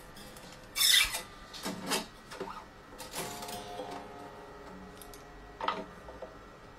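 Wound steel sixth (low E) string being pulled through and worked around a tuning post on the headstock of an acoustic guitar. There are a few quick metallic scrapes and swishes, the loudest about a second in, and the string rings faintly for a moment after about three seconds.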